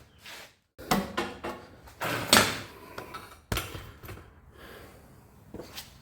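Tools being handled: short sliding scrapes and knocks like a toolbox drawer opening and closing, with a sharp clunk about three and a half seconds in and fainter knocks near the end.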